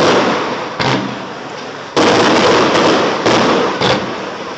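Aerial firework shells bursting in a display: a loud bang about two seconds in, with smaller reports shortly before and twice near the end, each followed by a fading crackle and rumble.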